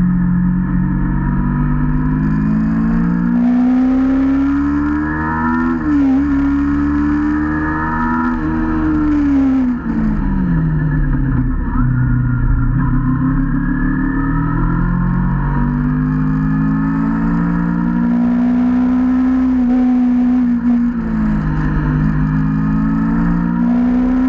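Motorcycle engine running under way, its pitch rising and falling with the throttle through the bends; about nine seconds in it winds down steadily for a couple of seconds as the bike slows, then climbs again. A low wind rumble on the microphone lies underneath.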